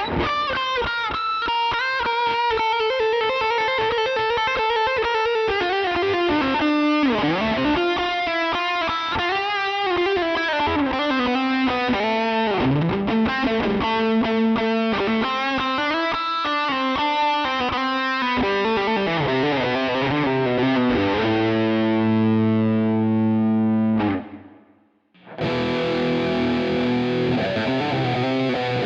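Electric guitar played through a distorted preset of the Scuffham S-Gear amp-simulator plugin: a lead line with notes that bend and slide in pitch, then held ringing chords. About 24 seconds in it cuts out for about a second, then comes back with another distorted part.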